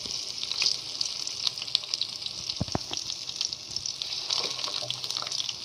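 Fish pieces in an egg-white, gram-flour and masala coating sizzling and crackling steadily in hot oil in a pan, frying on their second side after being turned. A few sharp clicks come about halfway through.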